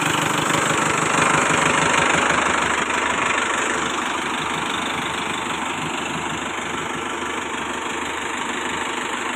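Mahindra Novo 605 DI tractor's diesel engine idling steadily, running well with its new timing-cover pulley bearing and oil seal fitted. It becomes slightly quieter about four seconds in.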